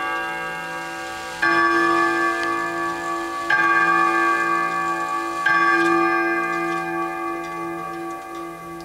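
Antique clock movement striking: three strokes about two seconds apart, each ringing on and slowly dying away, with the clock ticking underneath.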